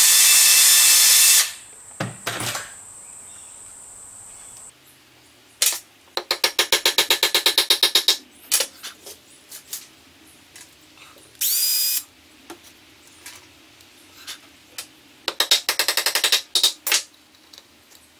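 Cordless drill drilling pilot holes through a brass nameplate into a wooden base, running loudly for the first second and a half and again briefly near the middle. In between come a few single knocks and two quick runs of rapid light metallic taps, about ten a second.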